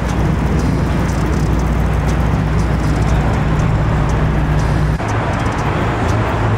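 Car engine idling nearby, a steady low drone that shifts to a different pitch about five seconds in.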